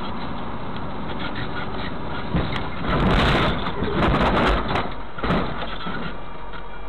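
Steady engine and road noise picked up by a dashcam, then a collision: a string of loud impact noises from about two and a half to five and a half seconds in, the heaviest around three seconds and again around four seconds.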